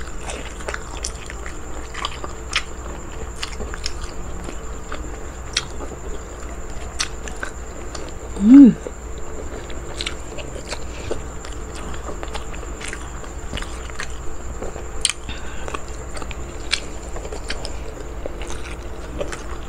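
Chewing and biting sounds of someone eating boiled banana heart and rice by hand: irregular wet mouth clicks and smacks. About halfway through comes one short hummed "mm" that rises and falls, the loudest moment.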